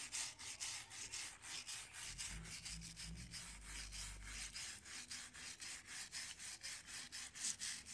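Stiff hand brush rubbing back and forth over a palm tree's fibrous bark, about four light scratchy strokes a second, dry-scrubbing black fungus off the trunk.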